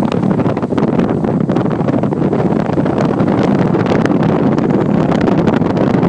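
Steady rush of wind buffeting the microphone at an open window of a moving car, with the car's road noise underneath.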